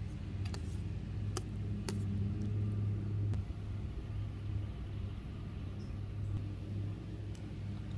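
A steady low rumble, easing slightly after about three and a half seconds, with a few sharp clinks of a metal spoon against a stainless steel bowl in the first two seconds.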